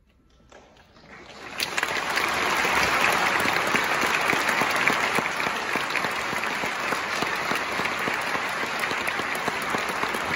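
Near silence just after the final held chord has died away, then audience applause breaks out about a second in and builds within half a second into steady, dense clapping.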